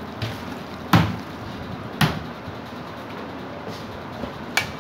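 A hand mixing raw minced chicken in a steel bowl, with sharp knocks against the metal about a second in, again at two seconds and near the end, over a steady background hiss.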